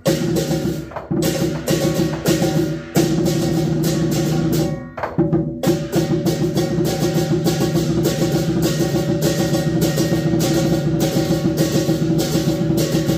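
Lion dance percussion: a large Chinese lion drum with clashing hand cymbals, playing in uneven bursts with short breaks at first, then settling into a steady fast beat from about halfway.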